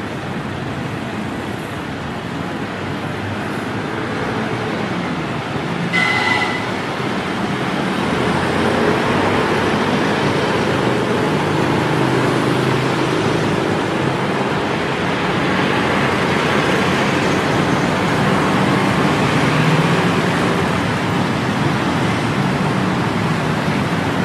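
Street traffic noise with motor vehicles passing. About six seconds in there is a brief high-pitched tone, and from about eight seconds on a heavier engine rumble sets in as the traffic grows louder.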